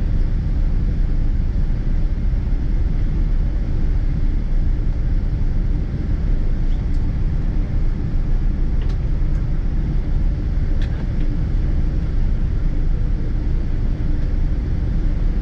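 Cabin noise inside a Boeing 777-200ER on the ground: a steady low rumble from its Rolls-Royce Trent 892 engines and the rolling airframe. A few faint clicks come from the cabin midway.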